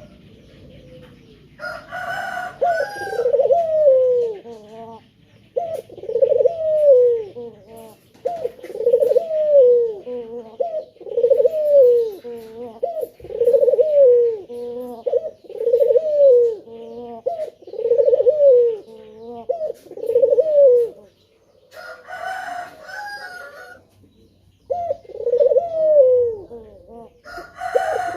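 A male puter (domestic ringneck dove) cooing repeatedly, an arching coo about every two seconds. The series breaks off about twenty seconds in and starts again a few seconds later, and a short burst of sharper, higher-pitched sound opens each series.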